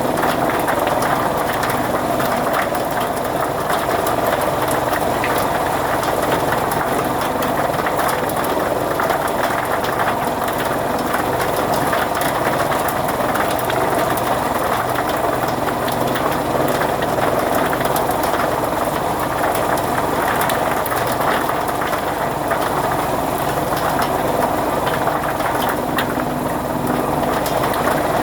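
Fodder chaff-cutter machine running steadily, a continuous engine-like mechanical drone with a fine clatter.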